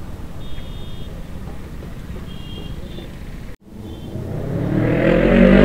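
Low engine rumble of a motorcycle riding slowly, broken by a brief dropout about two-thirds of the way in. Then an inline-four motorcycle engine revs up, its pitch rising and its sound growing louder toward the end.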